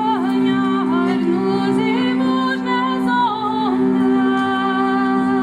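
Voices singing a medieval song from sheet music over a steady, unbroken low instrumental drone.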